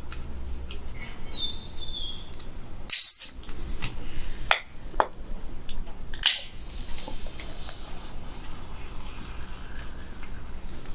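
Carbonated cola being opened twice: each time a sharp crack followed by a fizzing hiss of escaping gas, the first about three seconds in and the second about six seconds in, with small clicks of handling in between.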